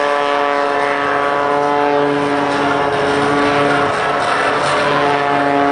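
MX-2 aerobatic monoplane's piston engine and propeller running hard overhead, a steady drone whose pitch shifts slightly about midway as the plane manoeuvres.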